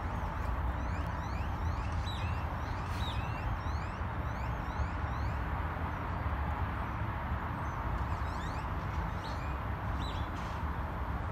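2020 Toyota Tundra's 5.7-litre i-FORCE V8 idling steadily, with birds chirping about two seconds in and again near the end.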